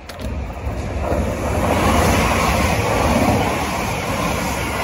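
A TransPennine Class 397 electric multiple unit passing through the station at speed, a rumble of wheels on rail with a rushing of air. It swells from the start, is loudest about two to three and a half seconds in, then begins to fade.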